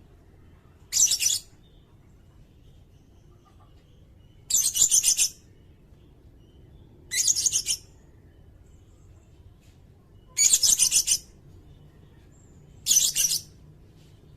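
Sirindet song: five short, high-pitched rattling trills, each lasting about half a second to a second, repeated every two to three seconds.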